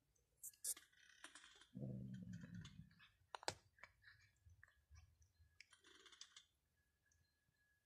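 Two cats eating dry food off concrete: faint, scattered crunching clicks. A single sharp click comes about three and a half seconds in, and a low drawn-out voice-like sound lasting about a second comes near the two-second mark.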